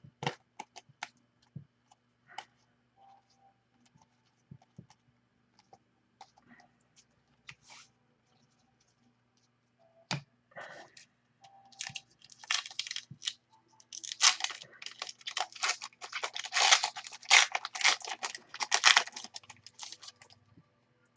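Scattered light clicks and taps of trading cards being handled. Then, from about halfway through, a card pack's wrapper is torn open and crinkled in the hands, the loudest sound, with dense crackling that stops shortly before the end.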